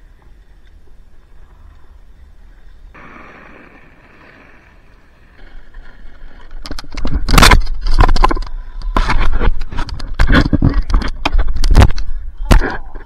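Snowboard scraping over snow, picked up close by a board-level action camera. It is quiet at first, then from about halfway in comes a loud run of rough scrapes and knocks as the rider wipes out and tumbles in the snow.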